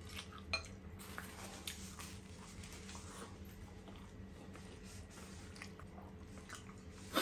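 Close-miked chewing of a mouthful of toasted ham sandwich: soft, wet mouth clicks and smacks. A brief louder crackle at the very end.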